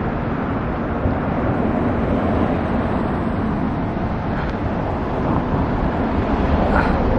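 Steady, even rumble of road traffic.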